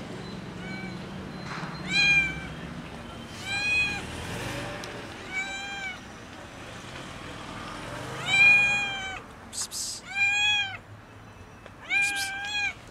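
Hungry black-and-white stray cat meowing loudly and repeatedly, about seven meows a second or two apart, each rising and then falling in pitch.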